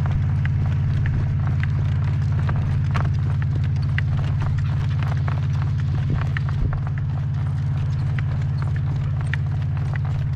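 A horse's hoofbeats clip-clopping in an irregular run of sharp knocks, under a loud steady low rumble of gale-force wind buffeting the microphone.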